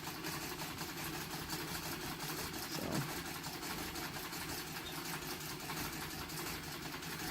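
Old Singer treadle sewing machine, freshly oiled, running steadily, its mechanism clattering in a fast, even rhythm. There is a short dull knock about three seconds in.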